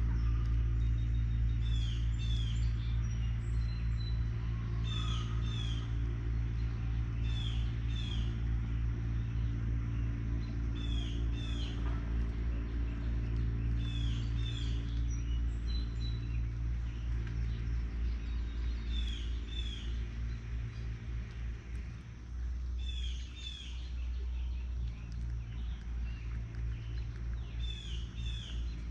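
A songbird calling over and over, short paired chirps every two to three seconds, over a steady low hum.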